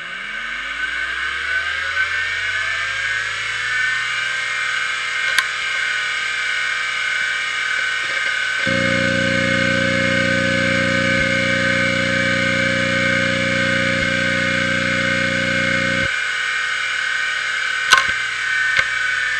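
Maxtor XT-8380S 5.25-inch full-height SCSI hard drive spinning up to 3600 rpm, its whine rising in pitch over the first few seconds and then holding steady. From about nine to sixteen seconds a louder steady buzz joins the whine as the drive initialises. A sharp click comes near the end as the drive goes into spin-down.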